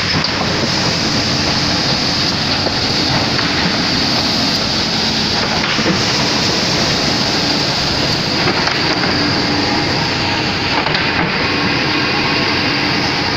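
Plywood wide belt sanding machine running with a loud, steady mechanical noise that does not change.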